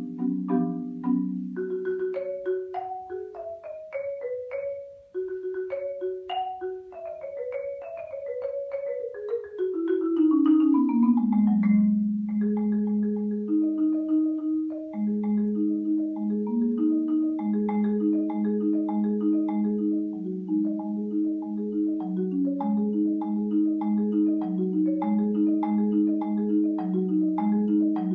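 Solo marimba played with mallets: quick patterns of struck notes, a run falling into the low register about ten seconds in, then a steady flowing pattern of repeated low and middle notes.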